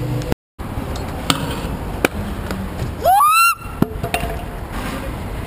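Kick scooter wheels rolling over paving, with a few sharp clacks of the scooter hitting the ground. About three seconds in comes a loud, short squeal that rises in pitch, as a rider bails.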